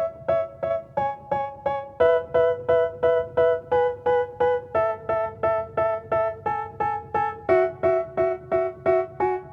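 Background music: a piano-like keyboard strikes a repeated chord about three times a second, and the notes shift every couple of seconds.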